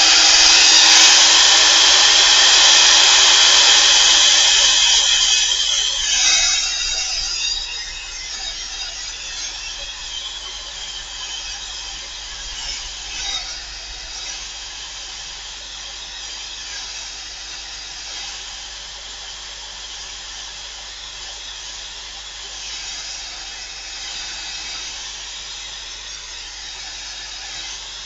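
Handheld hot-air dryer blowing steadily over a gel printing plate, drying thick acrylic paint. It is loudest for the first six seconds or so, then quieter from about seven seconds in.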